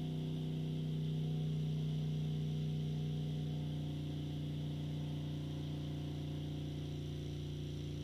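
Steady droning hum from a toilet: a low tone with several overtones and a fainter hiss above it, swelling slightly about a second in. The cause is unknown to the owner.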